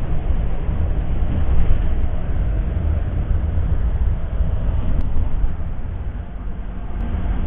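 Mercedes-Benz OH 1626 coach under way: a steady low rumble of engine and road noise, with a faint steady whine above it.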